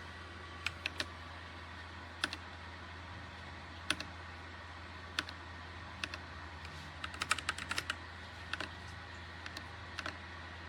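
Keys of a TMKB T68SE 60% mechanical keyboard being pressed. Single clicks come a second or two apart, with a quick run of several keystrokes about two-thirds of the way through. A steady low electrical hum runs underneath.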